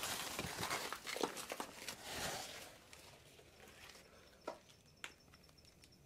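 Rustling through leaves and undergrowth with scattered crackles and footsteps for about two and a half seconds, then near silence broken by two faint clicks.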